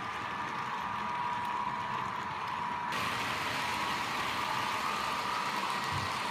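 Märklin HO model train running on the layout track: a steady electric-motor whine over the rolling noise of the wheels, as a container freight train passes. A higher hiss comes in abruptly about halfway through.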